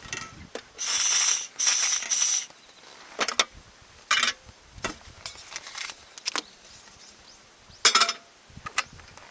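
Rattling, rustling handling noises: three loud rustling bursts in the first two and a half seconds, then scattered clicks and shorter rustles, with one sharp loud one near the end.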